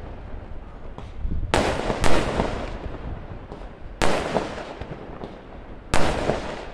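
Firecrackers bursting: three loud bangs about two seconds apart, each trailing off in a long echo, with smaller cracks between them.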